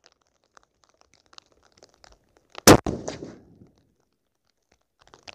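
Thompson Center Compass .308 bolt-action rifle fired once, about two and a half seconds in: a sharp crack with a tail that dies away over about a second. A second shot begins right at the end.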